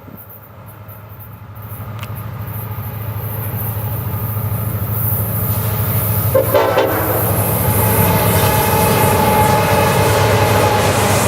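Approaching diesel freight train led by an EMD SD70M-2 locomotive: its engine rumble grows steadily louder, and about six seconds in the locomotive's air horn starts sounding and keeps blowing as the train nears.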